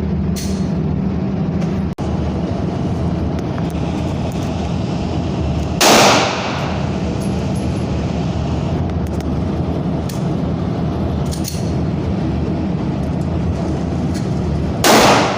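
Two loud gunshots about nine seconds apart, with a few fainter, sharp cracks of other shots between them, over a steady low rumble.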